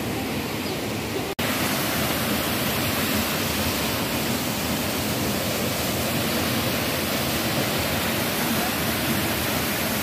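Waterfall pouring into a rock pool: a steady rush of falling water. It cuts out for an instant just over a second in, then comes back slightly louder.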